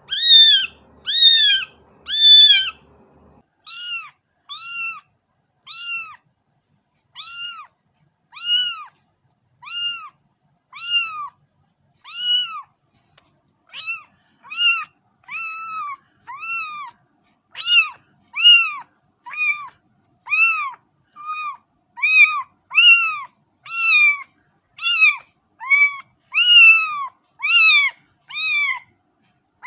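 Kitten meowing over and over: short, high meows that rise and fall in pitch, about one a second. The first three are louder and higher-pitched than the rest.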